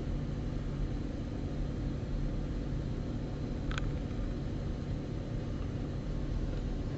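Steady background hum and hiss of room noise, with one brief faint tick a little under four seconds in.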